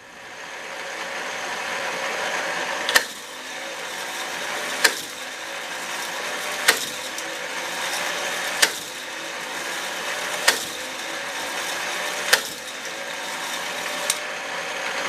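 K'nex plastic roller coaster model running: its motor-driven plastic chain lift and gears whir steadily. A sharp plastic click sounds about every two seconds.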